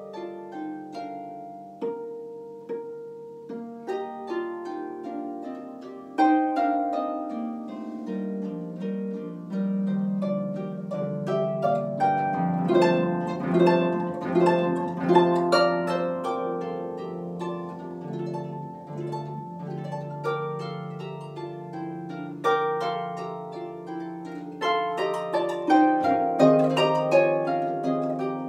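Concert harp played solo in a classical piece: plucked notes and rolling chords, soft at first, growing louder about six seconds in and fullest in the middle, then easing before swelling again near the end.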